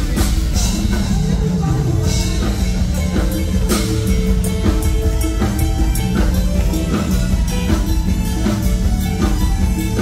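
Live band playing loudly through a stage PA: drum kit with cymbal strikes on a steady beat over bass and held keyboard notes, an instrumental passage without a clear lead vocal.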